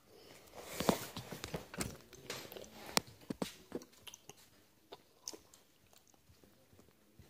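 A person sipping and gulping from an aluminium soda can held close to the phone's microphone, with irregular soft clicks and knocks from the can and phone being handled, mostly in the first few seconds.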